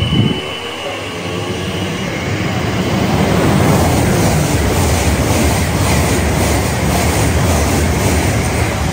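A train running past on the line, its noise building over the first few seconds and staying loud, with a regular clicking of the wheels over the track as the carriages go by. A brief thump is heard right at the start.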